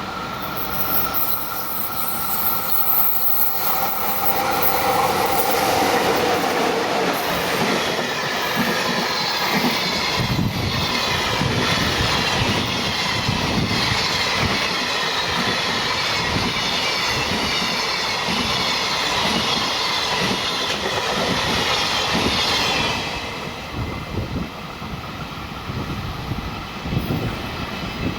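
Electric-locomotive-hauled freight train passing close by at speed. A pitched whine falls in pitch as the locomotive goes by. Then a long run of freight wagons follows, with wheels clattering steadily over rail joints under a hiss of steel on rail. The noise drops off sharply about 23 seconds in as the last wagon clears.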